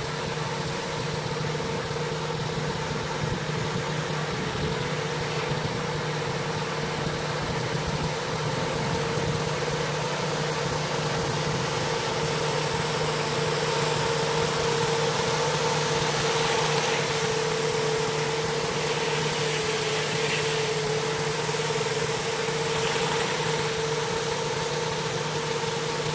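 Gas-engine pressure washer running steadily, with the hiss of high-pressure water spraying on a concrete driveway.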